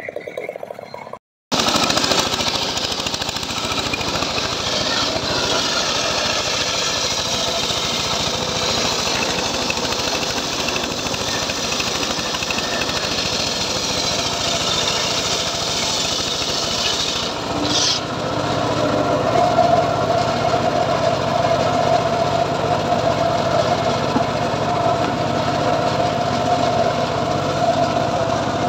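Homemade band sawmill running loud and steady as a teak log is fed through it, its engine and blade making a continuous dense noise; about 18 s in the sound shifts to a steadier humming tone. Before that, a chainsaw at a felled teak log is heard for about a second and cuts off abruptly.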